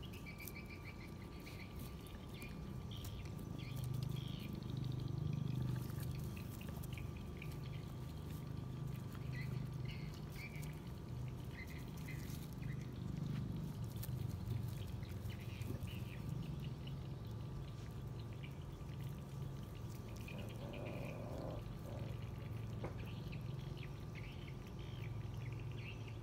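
Several puppies eating rice from plastic bowls: a steady run of chewing, smacking and lapping sounds.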